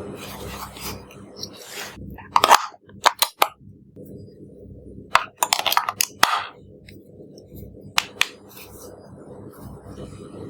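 Hard objects being handled: a few clusters of sharp clicks and clinks, loudest about two and a half seconds in and again around five to six seconds in, with two quick clicks near eight seconds.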